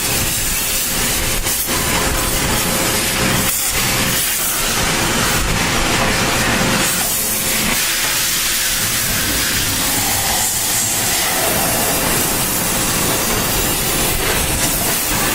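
Dry vapor steam cleaner jetting steam in a steady, loud hiss, with a faint steady tone beneath it.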